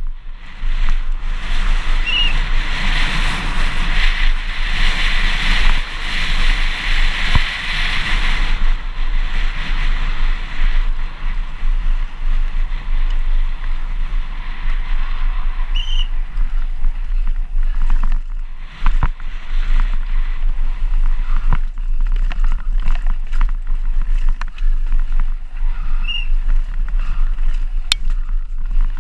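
Downhill mountain bike at speed on a dirt trail: wind buffeting the microphone, tyres hissing over dirt and gravel, and the bike rattling and knocking over bumps. The tyre and wind hiss is loudest for the first nine seconds or so.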